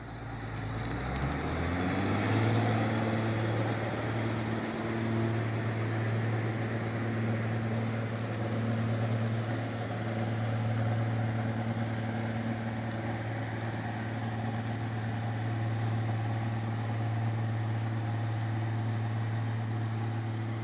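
Logging truck's diesel engine rising in pitch over the first two seconds, then running at a steady drone.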